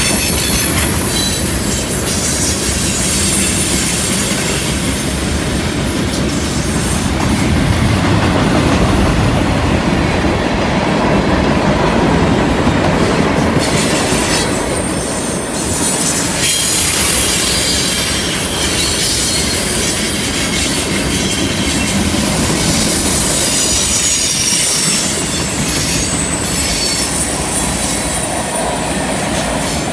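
Freight cars of a slow-moving train, mostly tank cars, rolling past on a curve: a steady noise of wheels on rail, with thin high-pitched wheel squeal coming and going.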